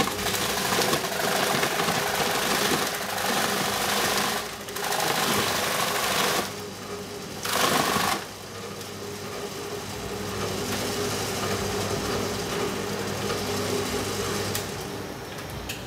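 Takyo TK15 electric forage chopper running with a steady motor hum while a banana trunk is fed in, its blades shredding the trunk with a loud, rough noise for about the first eight seconds. After that the machine runs empty, quieter, with only the motor hum left.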